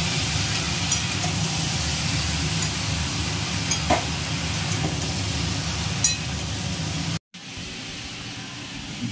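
Mixed vegetables sizzling as they are stir-fried in a metal kadhai, with a metal spatula clicking against the pan a few times. The sound cuts off about seven seconds in, giving way to quieter room sound.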